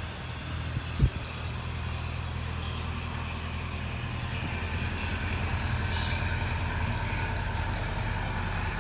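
A vehicle engine running steadily with a low hum, growing a little louder toward the end, with a single sharp knock about a second in.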